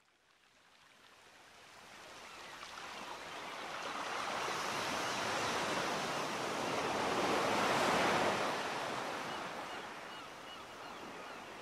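A steady rushing noise, like surf or wind, fades up from silence, is loudest about eight seconds in, then eases off.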